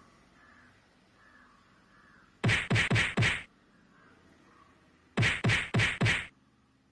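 Punching sound effects: two quick volleys of four sharp whacks each, about four a second, the second volley near the end.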